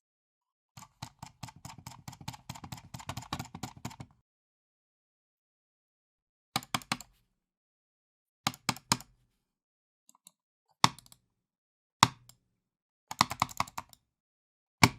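Computer mouse clicked and handled angrily. A fast, dense run of clicks lasts about three seconds, then after a pause come short groups of two or three clicks and several single hard, loud clicks spaced a second or two apart.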